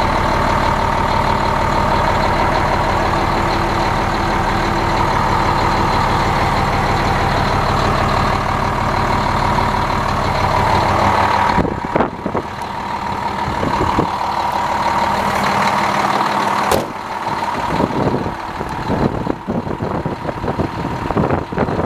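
The 2008 International 7600 plow truck's diesel engine idling steadily, heard from inside the cab. About twelve seconds in the sound changes, with a few sharp knocks, and the idle carries on less evenly, heard from outside the truck.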